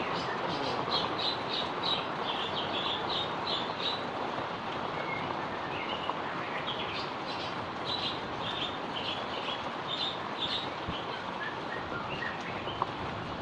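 Steady heavy rain falling, with a bird chirping over it in two quick runs of about ten short high notes each, one in the first few seconds and one in the middle.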